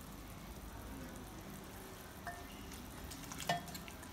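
Quiet kitchen hum with a brief glassy ring about two seconds in. Then a few clinks of a spoon against a glass mixing bowl near the end, as stirring of the pakora batter begins.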